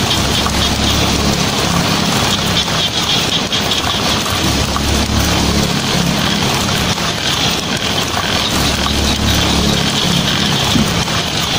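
Heavy rain falling steadily on a tin roof, with a low rumble underneath that swells and fades several times.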